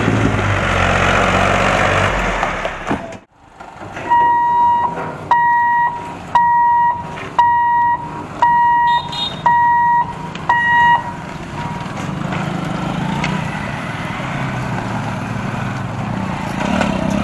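A tractor's engine runs close by, loud and low. After a break comes an electronic warning beeper at the level crossing, a steady tone sounding about seven times, roughly once a second. A low hum of passing motorcycles and traffic follows.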